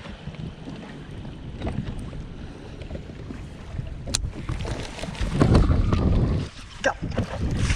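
Wind gusting across the microphone on a small boat, a low rumbling noise that swells louder about five seconds in, with a single sharp click a little past the middle.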